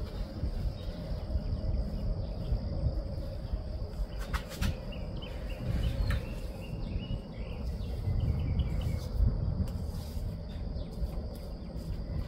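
Outdoor background with a fluctuating low rumble on the phone's microphone, and faint bird chirps a few seconds in, over a steady high insect-like tone.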